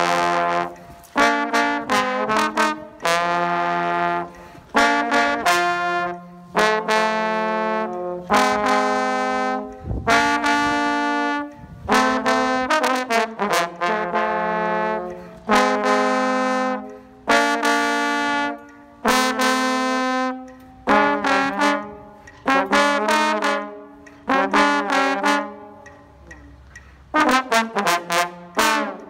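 A solo brass instrument playing a series of held notes and short phrases, each a second or two long with brief pauses between, some notes bending in pitch.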